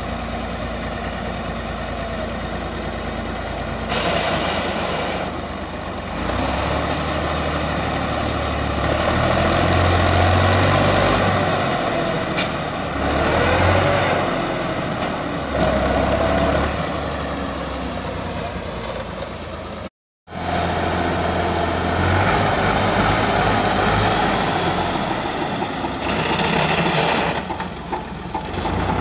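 Massey Ferguson 260 tractor's diesel engine running hard under load, its level swelling and easing repeatedly as it strains to pull a loaded trailer while its rear wheels are dug into soft soil. The sound breaks off for a moment about two-thirds of the way through.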